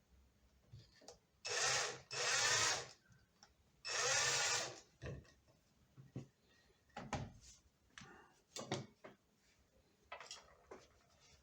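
A tool working a metal plate blank: three short, loud, noisy bursts close together, followed by scattered light clicks and knocks as the piece is handled.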